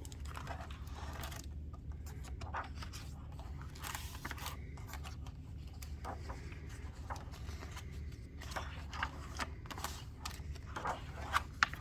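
Picture book being handled and its pages turned: soft paper rustles, scrapes and light clicks, a few sharper ticks near the end, over a steady low hum.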